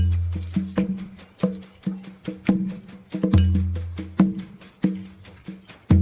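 Background music with a steady beat: tambourine-like jingles and percussion over deep bass notes.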